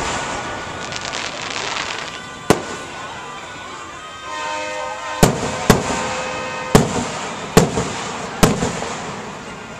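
Aerial fireworks bursting: a starburst crackling at the start, then six sharp bangs, most of them in the second half. A steady held tone sounds for about a second and a half midway.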